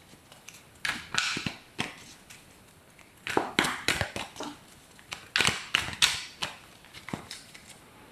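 A deck of oracle cards being shuffled by hand: an irregular series of sharp snaps and short rustles of the cards, with quiet gaps between.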